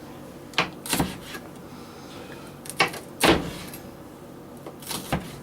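Kitchen knife striking a cutting board while vegetables are cut: a handful of separate, irregularly spaced knocks, the loudest a little past the middle.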